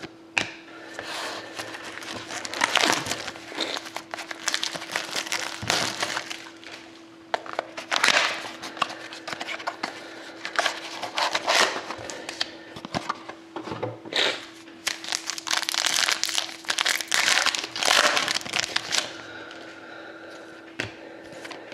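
Crinkling and rustling of a trading-card pack wrapper and hockey cards being handled, in irregular bursts a second or so long, over a faint steady hum.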